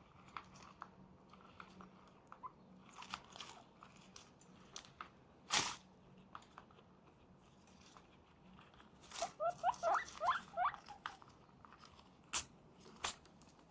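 Guinea pigs crunching and chewing food, with many small clicks. One short, loud sneeze about five and a half seconds in. A quick run of short, rising squeaks follows a few seconds later.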